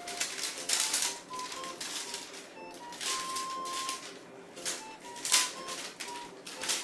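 Light background music, a melody of short notes, over repeated bursts of crinkly rustling as a cat's wand toy with film wings swishes and flutters through the air and is batted at.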